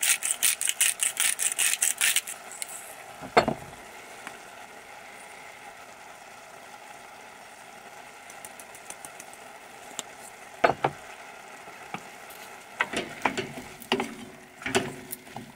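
Seasoning grinder twisted rapidly over the pot, a fast ratcheting rattle of about seven clicks a second for the first two seconds. Then onions and mushrooms sizzling softly in the saucepan, with a sharp knock about three seconds in and a few clicks and knocks near the end.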